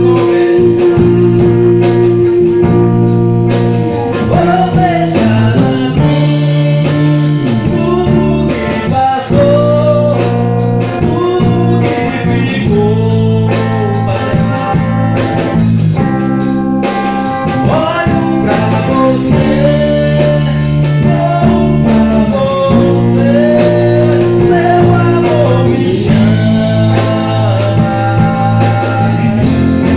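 A band playing a gospel song live: a strong bass line and drums under a gliding lead melody, with singing or guitar on top.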